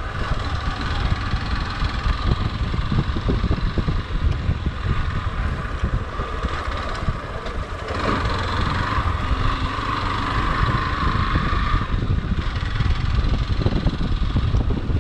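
Hero XPulse 200's single-cylinder engine running at low speed on a forest dirt track, mixed with wind buffeting the camera microphone; a brighter, steadier drone comes through for a few seconds just past the middle.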